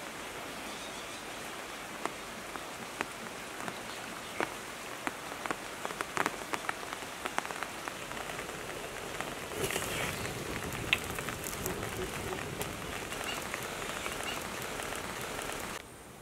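Wood fire crackling under a wok of boiling water: a steady hiss with many sharp pops and snaps, growing louder about ten seconds in.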